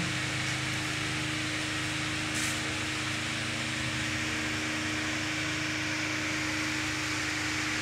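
Steady mechanical hum with an even hiss over it, unchanging throughout, and one faint tick about two and a half seconds in.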